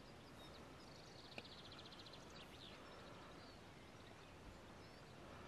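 Near silence: a faint open-air hush with a few soft, distant bird calls, including a brief rapid trill about a second in.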